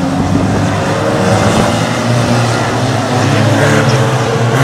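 Engines of several banger-racing cars running together round a short oval track, a steady drone with slight rises and falls in pitch.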